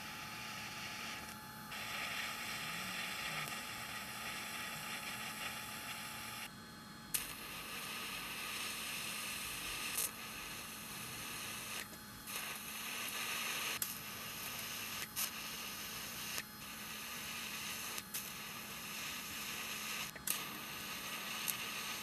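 Electric welding arc on steel from a TIG torch: a steady hiss that breaks off and restarts several times as the welds are laid, with a few sharp clicks.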